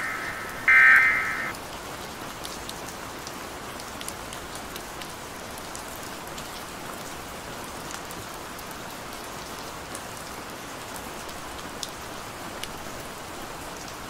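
A buzzing electronic data-tone burst of the kind used for Emergency Alert System header and end-of-message signals, cutting off about one and a half seconds in. After it comes a steady rain-like hiss with scattered faint crackles.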